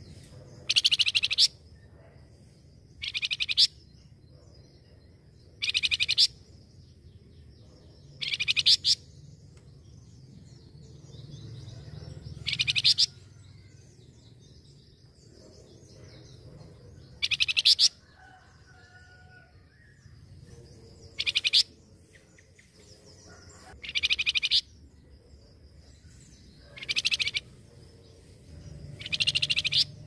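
Caged flamboyan, a small brown babbler, singing: a loud, short, high whistled phrase repeated about every two to three seconds, about ten times, with faint high chirping between the phrases.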